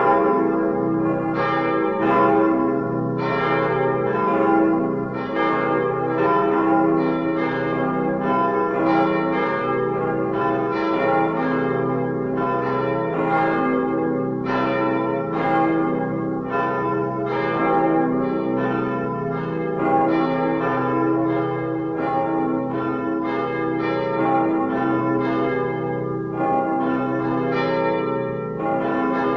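Simulated peal of the 1932 church bells cast by the Ulrich foundry in Apolda, ringing together in swinging peal, with about two strikes a second overlapping into one continuous ringing.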